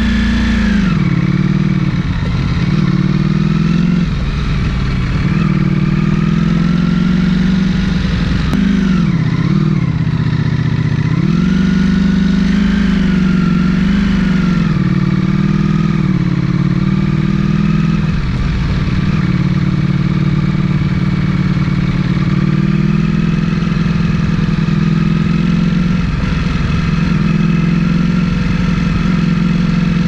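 Ducati Panigale V4S's 1,103 cc V4 engine and exhaust running at low revs, with several short rises and drops in pitch as the throttle is opened and closed.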